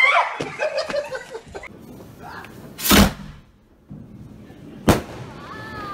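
Two loud firecracker bangs about two seconds apart, the first a little longer and louder than the second.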